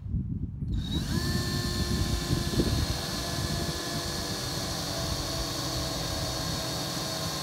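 Cordless DeWalt drill driving a 3/4-inch self-tapping bolt into the RV's metal frame. The motor starts about a second in and then runs with a steady whine under load as the bolt cuts its own thread.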